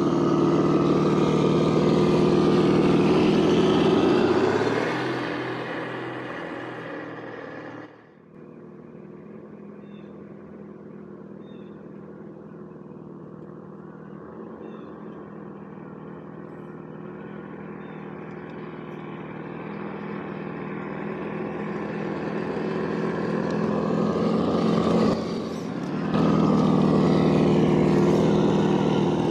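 Scale RC crawler's onboard engine-sound unit playing a simulated engine note at a steady pitch. It fades from about four seconds in and drops away sharply near eight seconds, stays faint through the middle while slowly growing, then jumps back to full loudness near the end.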